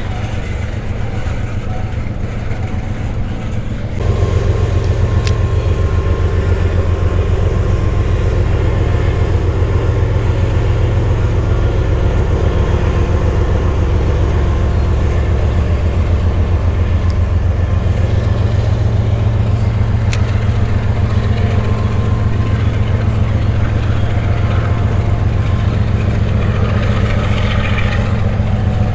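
Train engine running nearby: a loud, steady low rumble with an even throb, stepping up in loudness about four seconds in.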